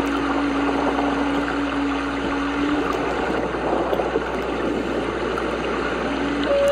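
Slow ambient background music: a long held note that fades out about three seconds in, with a new, higher note near the end, over a steady rushing, stream-like noise.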